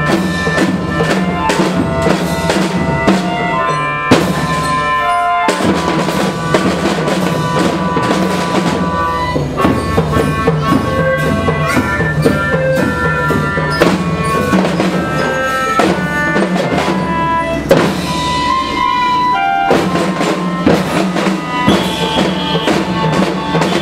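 Children's marching band playing: snare and bass drums beating a steady march rhythm under a melody of pitched notes.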